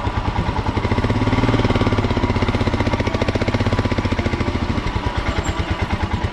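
Motorcycle engine running with a steady, rapid pulsing beat.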